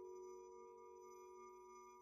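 Faint sustained musical drone: a few steady held tones sounding together and fading slightly.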